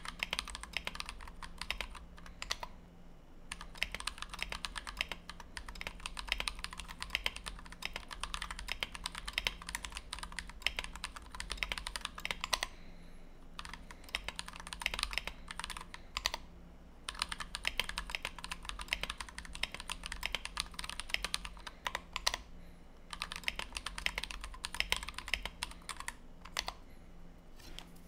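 Fast touch typing on a Tofu 60 mechanical keyboard with a brass plate, lubed and filmed Everglide Dark Jade switches and blank PBT OEM keycaps. Rapid, dense key presses come in runs of several seconds, broken by a handful of short pauses.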